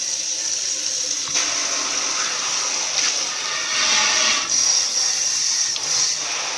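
Kitchen faucet running into a stainless-steel sink, water splashing into and over a small stainless camping pot as it is rinsed of cooked-on food. The flow goes from a single stream to a spray, and the sound grows fuller about a second and a half in.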